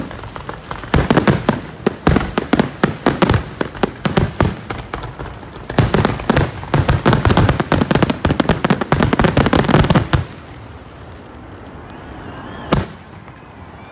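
Aerial fireworks finale: rapid volleys of shell bursts, several bangs a second, with a short pause about five seconds in, stopping about ten seconds in. One last loud bang comes near the end.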